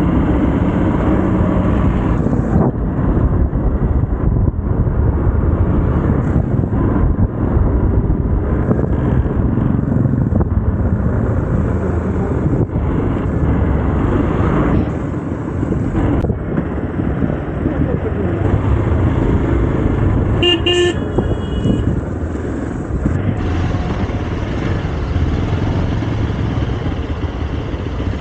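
Motorcycle riding along, with a steady rumble of engine and road noise. A vehicle horn toots briefly about two-thirds of the way through.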